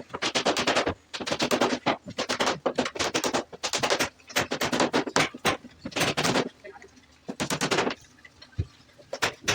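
Runs of rapid, sharp knocking strokes, about a second at a time with short pauses between, as wood is worked by hand with a tool.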